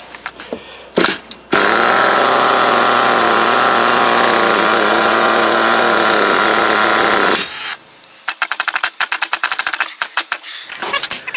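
Nitro RC car engine catching on its first start-up after restoration and running steadily at one speed for about six seconds, then cutting out abruptly. A quick run of sharp clicks follows near the end.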